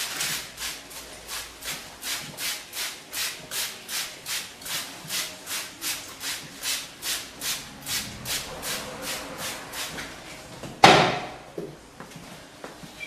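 Hands scrubbing shampoo into long hair during an upright shampoo: a steady rhythm of rubbing strokes, about two to three a second. Near the end a single sudden loud burst of noise fades out over about a second.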